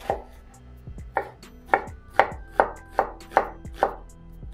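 Chef's knife dicing an onion on a wooden cutting board: about eight sharp knocks of the blade through the onion onto the board, coming faster after the first second.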